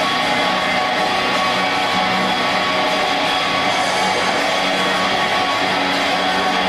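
Loud music with strummed electric guitar, going on at an even level.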